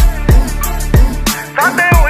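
Hip hop beat of a Punjabi rap song in an instrumental gap: deep bass notes sliding downward about three times a second under a wavering melodic line, which rises near the end.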